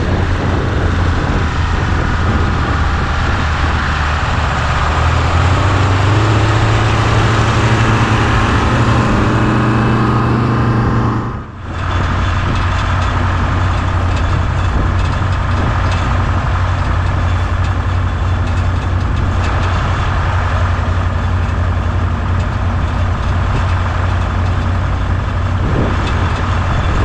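Diesel engines of two Oliver tractors, a Caterpillar 3150 V8 and a Detroit Diesel 4-53, running. The engine pitch climbs over the first ten seconds or so. After a brief drop about eleven seconds in, they settle into a steady idle.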